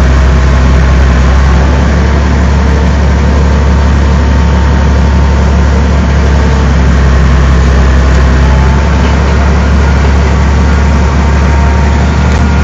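Tractor engine running a New Holland BR7060 round baler, a loud, steady low hum that holds even throughout.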